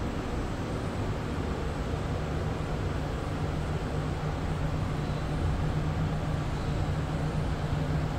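Cabin noise of an SMRT CT251 train running in a tunnel: a steady rumble with a low hum, growing a little louder about five seconds in.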